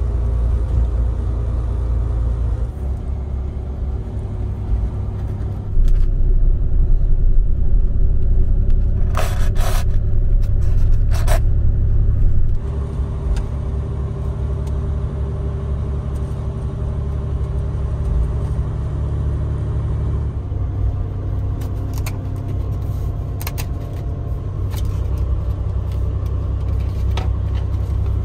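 Overnight highway bus running on the road, heard inside its cabin as a steady low rumble that grows louder for several seconds in the middle. A few short scrapes and clicks come from handling the bento packaging, around the middle and again near the end.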